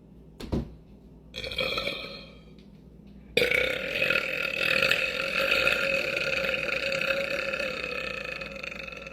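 A man belching: a shorter burp about a second and a half in, then one long, steady belch that starts suddenly about three and a half seconds in and lasts around six seconds.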